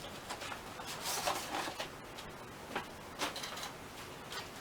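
Handling noises from a new bicycle inner tube being worked with the hands: a few light clicks and a brief rustle about a second in.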